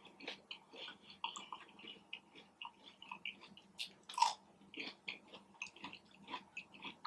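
A person chewing and biting food close to the microphone: a run of soft, irregular mouth smacks and small crunches, with one louder bite about four seconds in.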